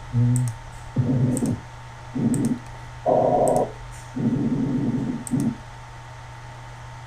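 Recorded lung sounds from a pulmonary auscultation training simulator played back, heard as a run of short humming, tonal breath sounds about a second apart, with light clicks between them.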